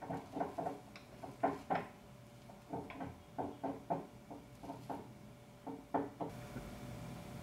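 Metal fork tapping and scraping against a glass plate while cutting a soft omelette: a run of short, irregular clinks and knocks, several per second.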